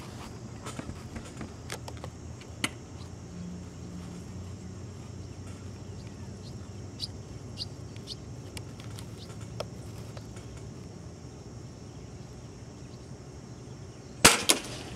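Scattered short bird chirps over a steady low hum, then near the end a loud sharp shot from a Gammo Shadow Sport break-barrel air rifle fired at a starling, followed at once by a second sharp crack.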